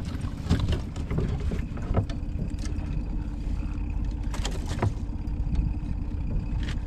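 Steady low drone of a fishing boat's outboard motor running, with scattered clicks and knocks of the landing net and tackle being handled against the aluminium boat.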